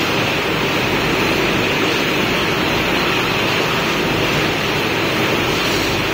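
Wire mesh welding machine running: a loud, steady, dense mechanical noise with no distinct beat.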